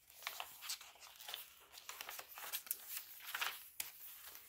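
Paper rustling and crinkling as the pages and paper inserts of a handmade junk journal are handled and a page is turned: a string of quick, soft rustles and scrapes.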